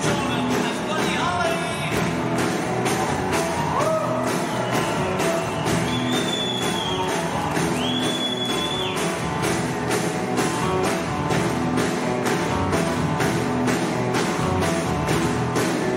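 Rock-and-roll band playing live: electric guitars over a steady drum beat, with singing, and a few held high notes in the middle.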